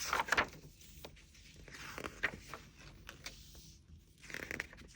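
Paper rustling as the pages of a picture book are handled and turned, in three short bursts: at the start, about two seconds in, and near the end.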